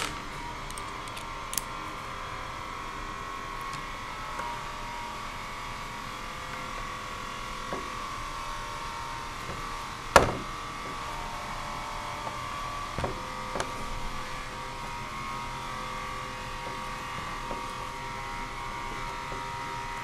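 Steady drone of machinery running in a working wood and machine shop, holding a few fixed tones. A few sharp clicks and taps of hand tools on the workbench sound over it, the loudest about halfway through.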